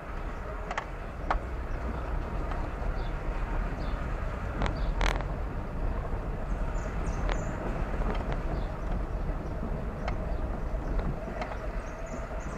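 A car being driven: steady low road and engine rumble with scattered irregular clicks and knocks.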